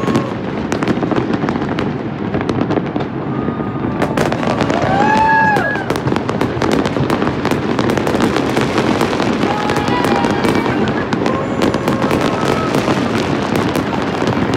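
Large aerial fireworks display: dense, continuous popping and crackling from many shells bursting at once.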